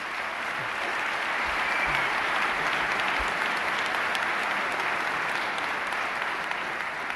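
Audience applauding, swelling about a second in and tapering off near the end.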